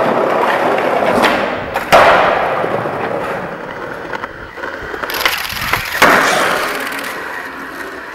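Skateboard wheels rolling on concrete, with sharp clacks of the board hitting the ground, the loudest about two seconds in and another about six seconds in; the rolling fades away near the end.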